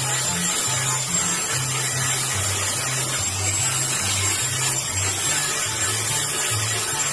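Electric angle grinder running steadily, its abrasive disc grinding against a bolo machete: a continuous high whine over rough grinding noise. Background music with a stepping bass line plays underneath.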